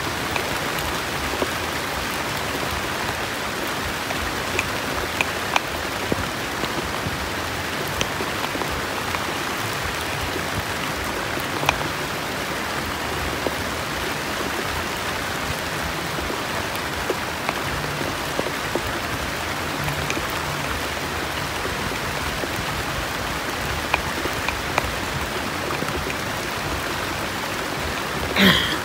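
Heavy rain falling as a steady hiss, with scattered sharp ticks. A brief louder sound comes just before the end.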